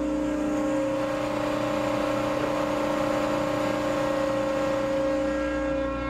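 Volumetric concrete mixer truck running while it discharges concrete down its chute: a steady engine drone with an even, constant-pitched whine from the mixing drive.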